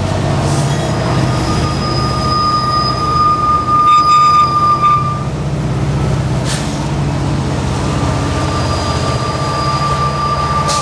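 Norfolk Southern coal train's diesel locomotives passing close by with a steady, throbbing engine rumble. A high steel-on-steel wheel squeal rings out from about a second in to about five seconds, and again from about eight seconds on.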